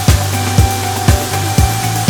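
Background music with a steady beat of about two drum hits a second over held bass notes.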